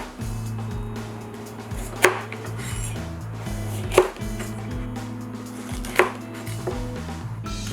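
Kitchen knife chopping on a cutting board: three sharp strikes about two seconds apart, over steady background music.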